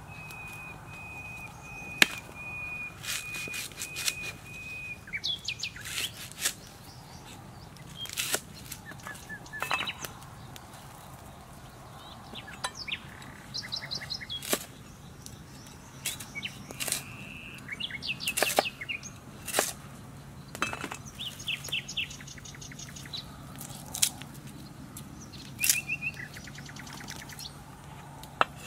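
A cleaver-style kitchen knife chopping lemongrass on a wooden chopping block, giving sharp knocks at irregular intervals, with birds chirping and trilling in the background.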